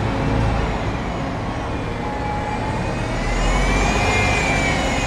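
Natural-gas city bus pulling away and passing close, its engine rumbling steadily with a high whine that rises and falls in pitch. It gets louder from about three seconds in.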